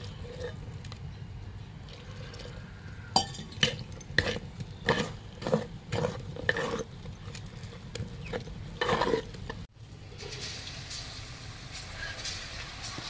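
A metal spoon stirring millet dosa batter in a metal pot, with irregular scrapes and clinks against the pot. About ten seconds in it cuts to hot oil sizzling steadily in a kadai as vada batter is fried.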